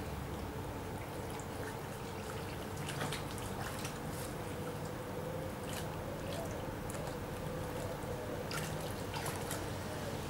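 River water trickling over a shallow, stony riffle, an even rushing hiss broken by a handful of brief splashes.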